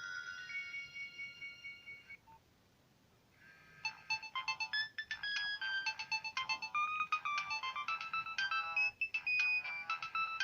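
Nokia 1200 mobile phone playing its built-in ringtones through its speaker. One ringtone's held notes fade out about two seconds in, and after a short pause another ringtone starts, a quick run of short notes.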